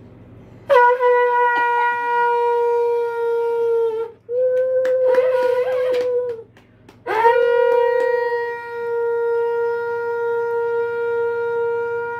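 Conch shell (shankha) blown in three long, steady blasts, the third the longest.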